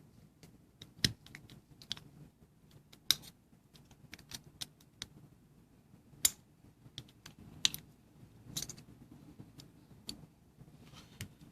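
Scattered small clicks and taps of plastic and metal, a few sharp ones standing out, with a brief scrape about eight seconds in, as the metal battery contact is pried out of an opened plastic key fob case.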